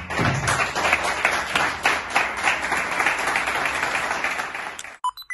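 A small seated audience applauding, many hands clapping at once. The applause cuts off abruptly near the end.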